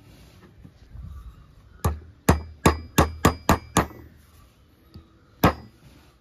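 Hammer blows on a steel socket used as a drift on an alternator rotor shaft, seating a bearing: seven quick metallic taps about three a second, then one more blow near the end, each with a short ring.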